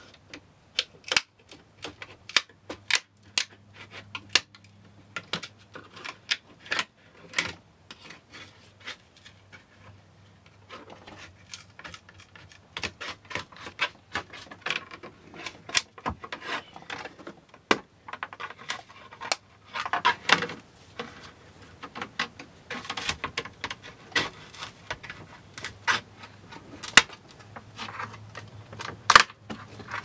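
Brittle fiberglass laminate being pried and broken off a countertop edge by hand: irregular sharp cracks and clicks with some scraping, coming thicker and louder in the second half.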